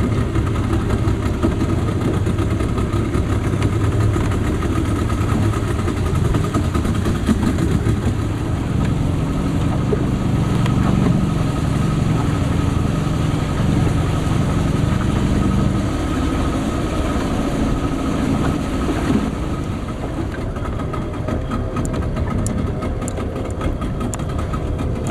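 Motorboat engine running steadily while under way, easing slightly about two-thirds of the way through.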